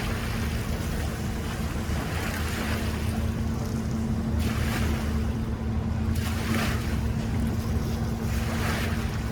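Boat engine running steadily, with water washing about every two seconds.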